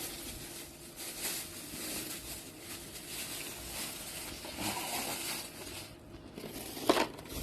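Rustling and wet handling noises as freshly caught fish are picked up and tossed into a container, with a sharp knock near the end.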